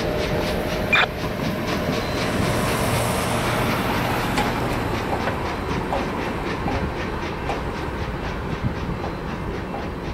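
Freight train of covered hopper cars rolling away, its steel wheels clacking over the rail joints in a steady rhythm, with one sharper clack about a second in. The sound eases slightly as the train recedes.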